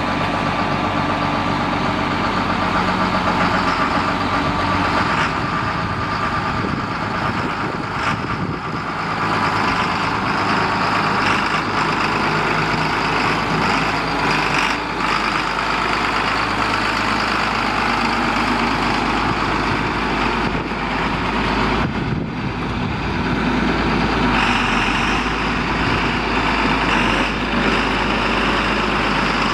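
A John Deere 4255 tractor's 7.6-litre six-cylinder diesel engine running steadily while the tractor is driven slowly, with a few abrupt shifts in the sound.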